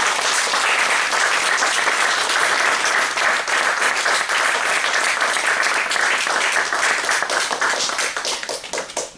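Audience applauding, steady and dense, thinning out into scattered separate claps near the end.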